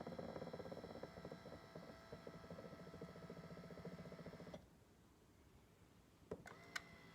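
Doctor Air 3D massage seat's motor and massage mechanism running with a fast rattling, the abnormal noise the seat is recorded for. It cuts off suddenly about four and a half seconds in; two sharp clicks follow and the motor hum starts again near the end.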